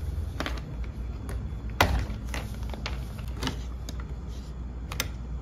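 Scattered clicks and knocks of a brass elbow fitting being handled and threaded onto a dishwasher's water inlet valve, hard metal and plastic tapping together, the sharpest knock about two seconds in. A low steady hum runs underneath.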